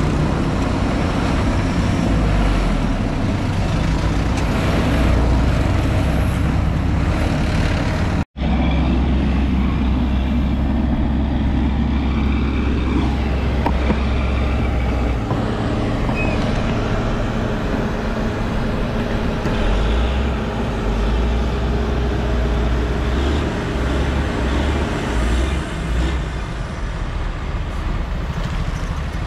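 Diesel engines of heavy earthmoving machinery running steadily, with a deep, continuous rumble. The sound breaks off completely for an instant about eight seconds in.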